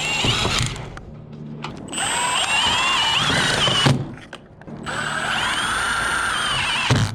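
Cordless power drill running in three bursts of a couple of seconds each, its motor whine wavering in pitch under load, working on the metal roof panels.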